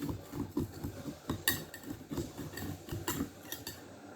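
A utensil scraping around the inside edge of a cake pan in a run of short, irregular strokes and clicks, loosening the baked cake so it won't stick to the sides.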